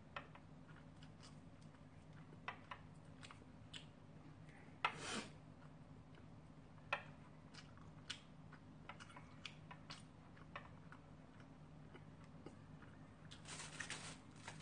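Quiet eating: scattered small clicks of disposable wooden chopsticks against takeaway food containers, with a sharper one about five seconds in and a cluster of small eating noises near the end, over a faint steady low hum.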